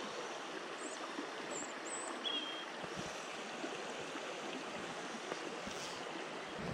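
Small shallow burn running over a stony bed: a steady rush of flowing water, with a few short high chirps about one to two seconds in.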